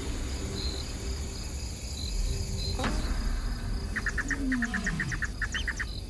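Wild nature ambience: insects chirping over a steady low rumble. About three seconds in there is a sharp click, then a rapid run of chirps, about eight a second, lasting nearly two seconds.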